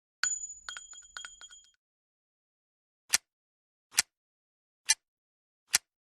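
.44 Magnum revolver handling sounds: a metallic clink that rings on for about a second and a half with small rattling clicks. Then, from about three seconds in, come four sharp metallic clicks evenly spaced just under a second apart.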